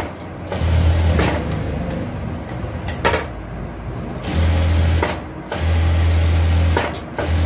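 Sewing machine motor running in short bursts, stitching a seam, with a few sharp clicks in between.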